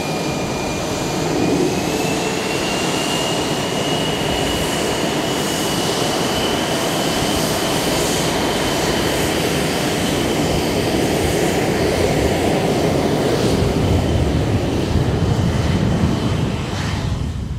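HAL Tejas fighter's single General Electric F404 turbofan running loud: a steady jet rush with a high whine that rises in pitch about two seconds in and then holds steady.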